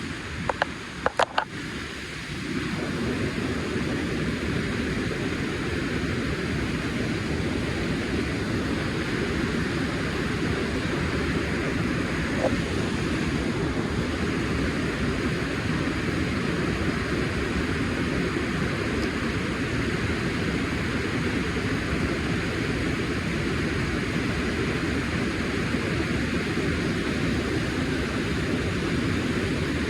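River water rushing steadily, an even wash of noise, with a few sharp clicks in the first couple of seconds.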